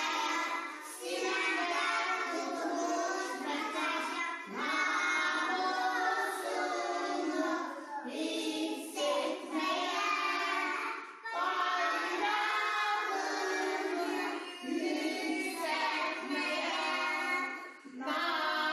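A group of young children singing a song together, in phrases broken by short pauses about every three to four seconds.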